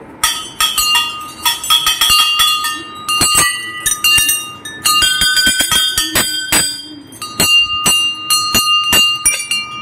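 Hanging brass temple bells rung by hand: several bells of different pitches struck in quick, irregular succession, each ringing on under the next strikes.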